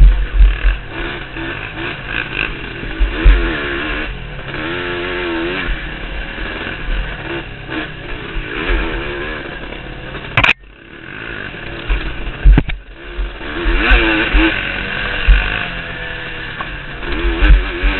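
Quad (ATV) engine revving up and down as it is ridden hard over a rough dirt trail, its pitch rising and falling with the throttle, with wind buffeting and knocks from bumps on the camera. A sharp knock comes about ten and a half seconds in, and the engine sound dips for a moment after it.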